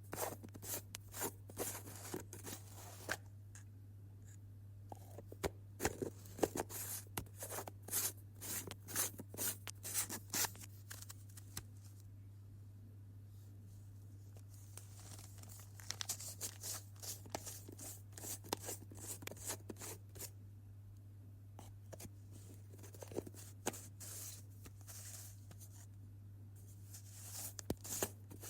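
Jam jar's lid being twisted open: clusters of short, crackly clicks and scrapes, each lasting a few seconds, with pauses between them. A steady low hum runs underneath.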